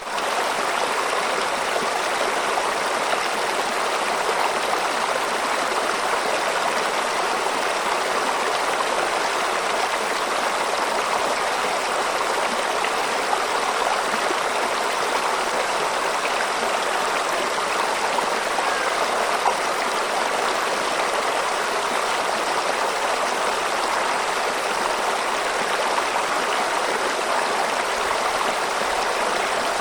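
Running water flowing steadily, an even, unbroken rush with no pauses or changes.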